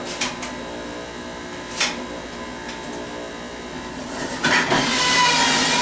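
A couple of sharp knocks of a knife on a cutting board. Then, about four and a half seconds in, a stainless-steel centrifugal juicer's motor starts up and runs with a steady, high whirring hum.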